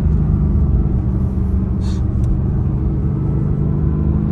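Mercedes-AMG GT R's stock twin-turbo 4.0-litre V8 running at steady, low revs while cruising, heard from inside the cabin as a steady low-pitched drone.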